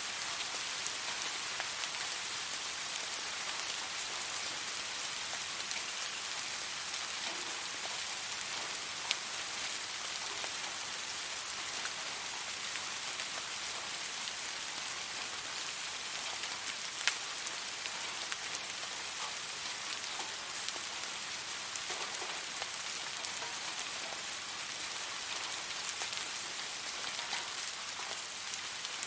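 Steady rain falling on a surface, an even hiss with individual drops ticking now and then, a couple of them standing out louder.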